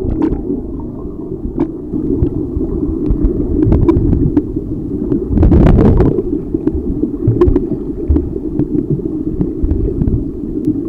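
Water noise picked up by a camera underwater: a muffled low rumble with scattered small clicks, swelling louder for about a second around the middle.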